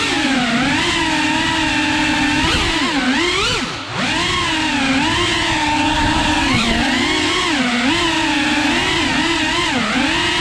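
FPV drone's brushless motors and propellers whining, the pitch rising and falling constantly with throttle, with a brief drop in pitch and level about four seconds in as the throttle is cut and picked up again.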